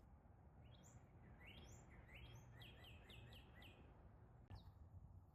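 Faint songbird singing a phrase of repeated down-slurred whistled notes that come faster as it goes, with one more note and a brief click near the end, over a faint low rumble.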